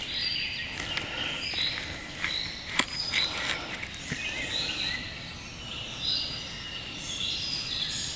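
Several birds singing and chirping in short repeated phrases over a steady outdoor background. A few sharp clicks from a steel knife and fork against a wooden cutting board, the clearest about three seconds in.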